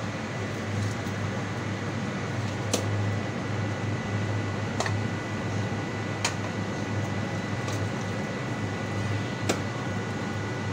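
A long-handled hoe chopping and dragging thick grease sludge, with a handful of sharp knocks as the blade strikes, heard over a steady mechanical hum with a low drone.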